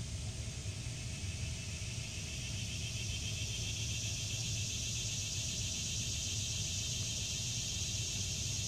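Steady outdoor background noise: an even high hiss over a low rumble, the hiss growing a little stronger partway through.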